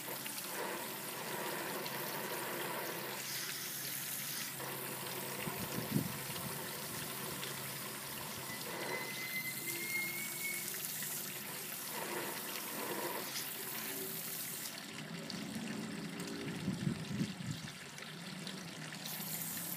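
Water running from a garden hose's spray nozzle, spattering and trickling into a shallow paddling pool. The highest hiss thins out for a few seconds near the end as the spray is moved.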